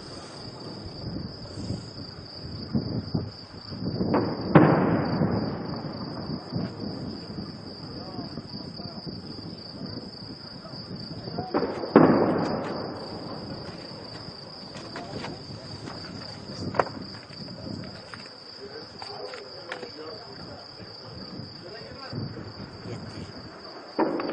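Distant heavy weapons fire echoing over the town: two loud blasts, about four and a half and twelve seconds in, each rolling away for a couple of seconds, with scattered smaller shots between. Crickets chirp steadily throughout.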